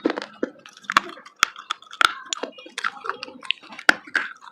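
Pieces of dry clay being bitten and chewed, with irregular sharp crunches and cracks, several a second.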